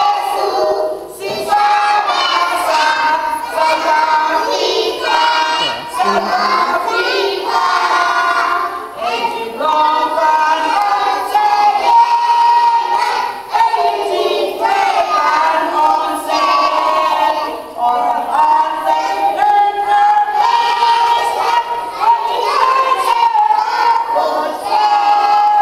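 A group of young children singing together in unison, in a steady run of short phrases.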